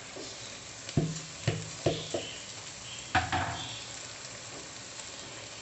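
Soaked rice being tipped from a plastic bowl into a pot of simmering gravy and spread with a plastic spatula: four sharp knocks against the pot in the first few seconds, over a steady low sizzle.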